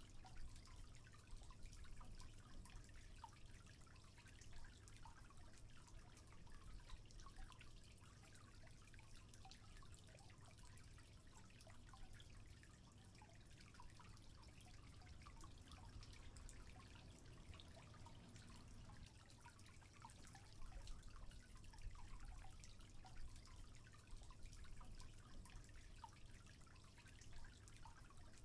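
Faint water dripping and trickling, many small scattered drips.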